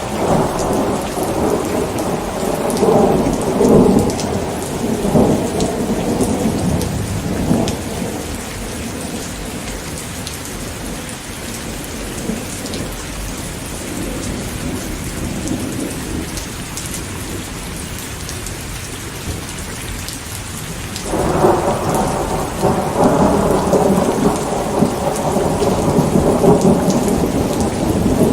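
Steady rain with rolling thunder: a long low rumble that fades out by about eight seconds in, then a second rumble that breaks in suddenly about three-quarters of the way through and keeps going.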